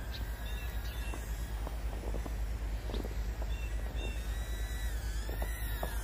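Whine of a pico quadcopter's tiny brushed motors in flight, its pitch wavering and rising near the end, over a steady low rumble with scattered soft clicks.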